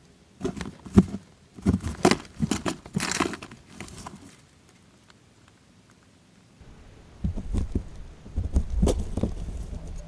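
Northern short-tailed shrew rummaging through dry seed husks, peanut shells and fur: irregular rustling and crackling clicks in two spells, with a quiet stretch of about two seconds between them. A low rumble runs under the second spell.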